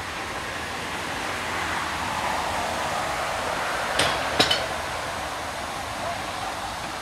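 Narrow-gauge steam rack locomotive moving slowly with a steady hiss of escaping steam. A couple of sharp metallic clanks come about four seconds in.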